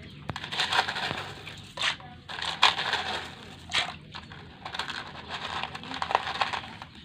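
Small coloured gravel crunching and clicking as hands dig through it, in irregular scrapes and rattles.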